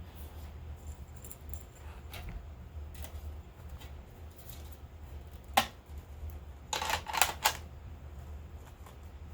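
Hands handling unboxed products and packaging: a single sharp click about halfway through, then a quick run of clicks and taps a second later, over a low steady hum.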